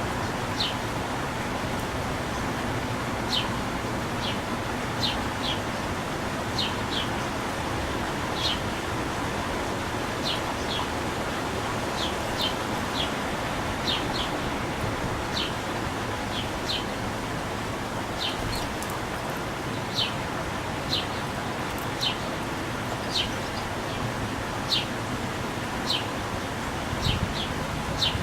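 Small birds chirping: short, high, downward-sweeping chips, one or two a second and irregular, over a steady background hiss.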